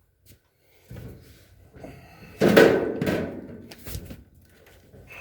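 A loud bang about two and a half seconds in, among lighter knocks and rattles of parts being handled.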